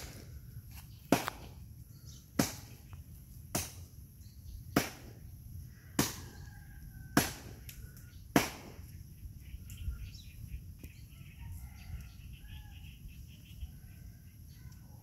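A row of sharp knocks, evenly spaced a little over a second apart, seven in all, that stop about two thirds of the way through. Faint high chirps follow.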